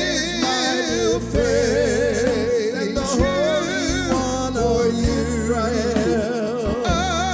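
Gospel worship song: a voice singing with vibrato over steady instrumental accompaniment.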